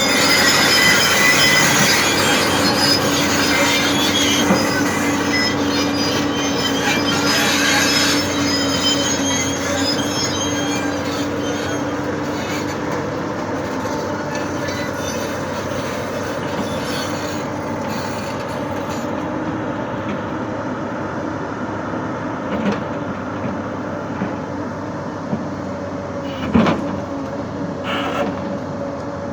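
Hyundai excavator moving on its tracks, the steel tracks squealing and grinding over the running engine. The sound slowly gets quieter, with a couple of sharp knocks near the end.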